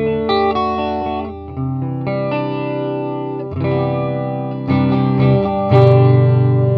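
2013 Indonesian-made Epiphone Les Paul 100 electric guitar played through an amplifier on a clean tone: chords and notes, each held about a second, with a louder chord near the end.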